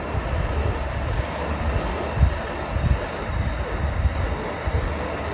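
Hot air rework station blowing on a phone's circuit board, a steady rushing of air with an uneven low rumble, as it melts the solder under a newly fitted charging port.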